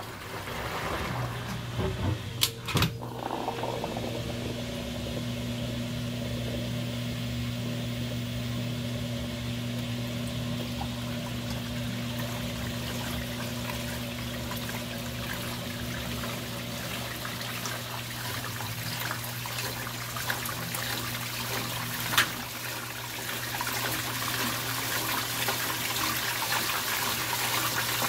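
LG Twin Wash Mini pedestal washer agitating a load of clothes in water: a steady motor hum under swirling, sloshing water. A few sharp clicks come about two to three seconds in, another about three-quarters of the way through, and the hum fades out near the end while the water noise goes on.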